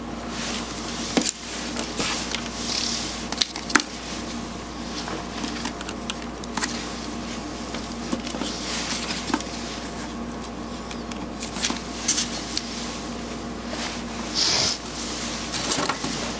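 Handling noise from alligator-clip jumper leads and hookup wires being moved and clipped onto a circuit: scattered small clicks and brief rustles, over a steady low hum.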